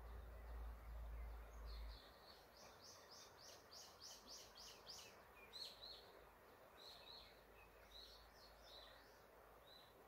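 Forest birds singing: a fast run of about a dozen short, high, evenly spaced notes from about two seconds in to five seconds, then scattered short downward-slurred notes. A faint steady rush of river rapids runs beneath, with a low rumble during the first two seconds.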